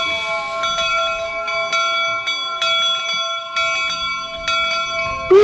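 A steam locomotive's bell ringing steadily, about two to three strokes a second, with faint voices underneath.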